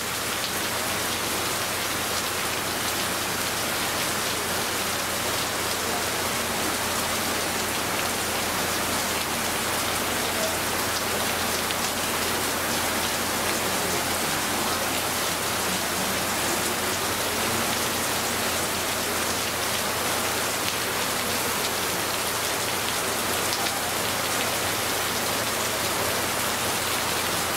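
Heavy rain pouring down steadily on the street and rooftops, a dense even hiss with no let-up.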